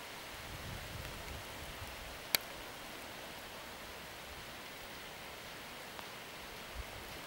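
Steady hiss of moderate rain falling, with a single sharp click about two seconds in.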